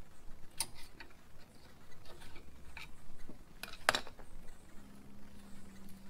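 Scattered metal clicks and clinks of a screwdriver working the brake pads loose from a Mitsubishi Outlander's front brake caliper, with one sharper clack about four seconds in. A faint low hum starts near the end.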